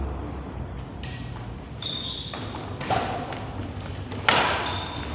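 Badminton rally: rackets striking the shuttlecock with sharp pings, the loudest a jump smash about four seconds in, echoing in the hall. Brief shoe squeaks on the court floor come between the shots.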